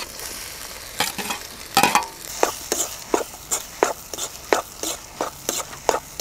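A spoon stirring and mashing boiled potato into onion masala frying in oil, knocking against the pan about three times a second over a steady sizzle. There is a louder clatter about two seconds in.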